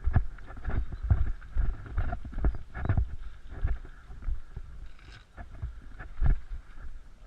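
Footsteps and the knocking of gear through woodland undergrowth, heard on a body-worn action camera: irregular heavy thumps, about two a second.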